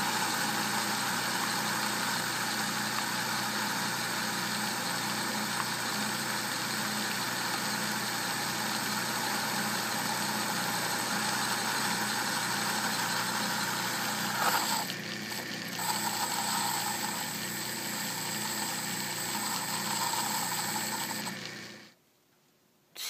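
Atlas metal lathe running steadily under power while boring out a part; the sound shifts briefly about 15 seconds in and cuts off abruptly near the end.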